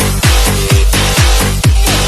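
Hip-hop beat with deep bass drum hits that slide down in pitch, about two a second, over steady hi-hats.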